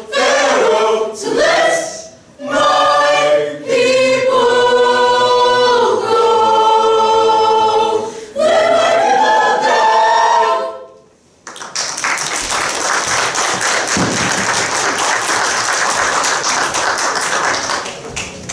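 Mixed high school choir singing held chords, closing the song on a long final chord about eleven seconds in. After a brief pause the audience applauds for several seconds.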